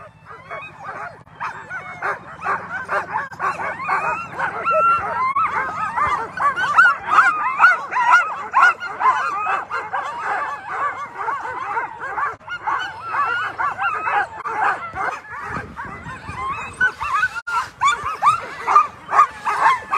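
A chorus of many Alaskan husky sled dogs barking, yipping and whining without pause: the excited clamour of a team harnessed at a race start, eager to run.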